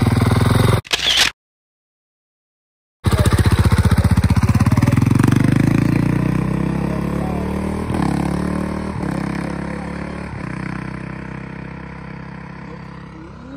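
Dirt bike engines revving hard and accelerating away as two bikes launch, the sound briefly cutting out to dead silence before the launch. The engine note drops three times as the bikes shift up, fading steadily as they pull away into the distance.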